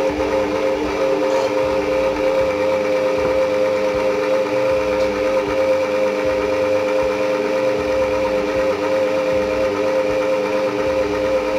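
AEG stand mixer's motor running steadily under load, its dough hook kneading bread dough in the steel bowl: a steady, unchanging whine.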